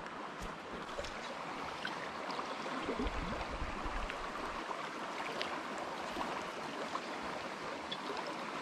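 Small river flowing over a shallow rippled run: a steady rush of moving water with small splashes and trickles.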